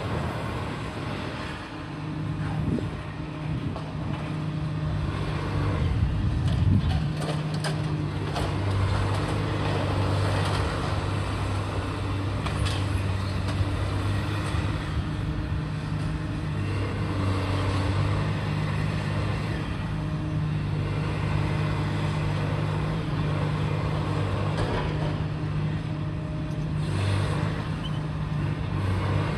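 Heavy diesel engine of demolition plant running steadily, with scattered knocks and crunches and a brief surge about six seconds in.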